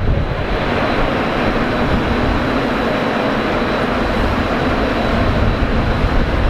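Wind buffeting the microphone: a loud, steady rush with an uneven low rumble underneath.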